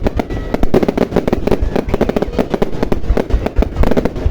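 Aerial fireworks display going off in a rapid, dense barrage of overlapping bangs, several a second without a break.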